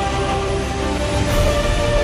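Background music with sustained held notes over a steady low bass pulse.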